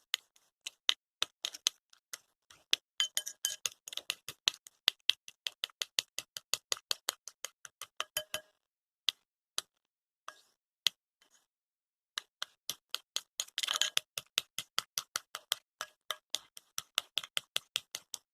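A mixing utensil clicking against the container while slime is stirred. It makes a quick run of sharp clicks, about four a second, that thins to a few scattered clicks for several seconds in the middle before the steady run resumes.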